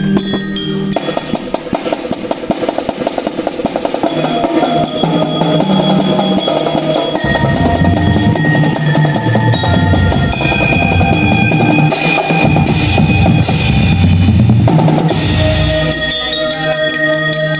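Marching band percussion playing: a fast snare drum roll starts about a second in, and heavy bass drum hits join about seven seconds in, under steady high pitched melody notes. The drums drop back near the end, leaving the melody.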